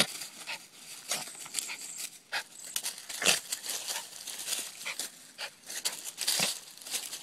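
Yorkshire terrier shaking and worrying a live bluegill in its jaws among grass and dry leaves: irregular, sudden bursts of rustling and crackling as the fish thrashes and the vegetation is thrown about.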